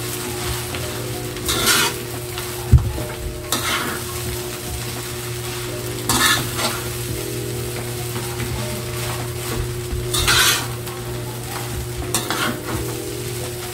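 Fried rice being stir-fried in an aluminium wok: a metal spatula scrapes and turns the rice in strokes every few seconds over a steady sizzle. A sharp knock of the spatula against the pan about three seconds in is the loudest sound.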